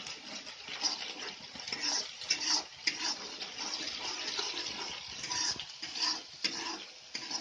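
Chilli and spice paste sizzling in hot oil in a wok, stirred with a metal ladle, with a few sharp clicks of the ladle against the pan.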